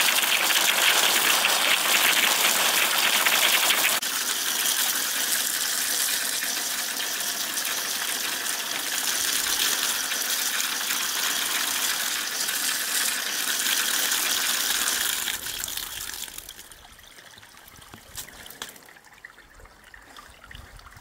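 A stream of water gushing onto green leafy vegetables in a woven bamboo basket as they are rubbed and rinsed by hand. The splashing eases slightly about four seconds in and stops about three-quarters of the way through, leaving a much quieter background.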